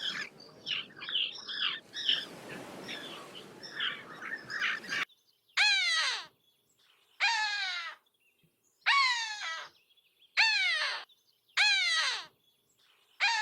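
Small birds chirping over background noise, then, after an abrupt change about five seconds in, a bird giving six loud caw-like calls about a second and a half apart, each falling in pitch.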